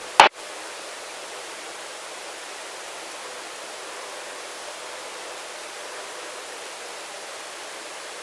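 A sharp click just after the start, then a steady, even hiss of a helicopter's intercom audio with no voices on it, carrying two faint steady tones.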